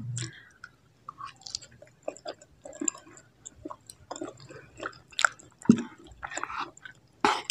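Close-miked chewing of a spicy sauce-coated sausage, with many short wet smacks and clicks. One louder, sharp sound comes near the end.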